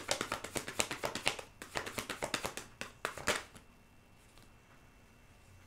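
A deck of tarot cards being shuffled by hand: a quick run of card flicks and clicks that stops about three and a half seconds in, leaving only faint room hiss.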